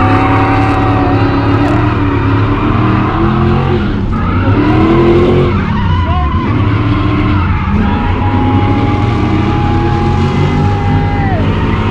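Lexus 3UZ V8 in a Nissan S13 drift car held at steady high revs through a drift, its pitch dropping and climbing back a few times, with tyres skidding underneath.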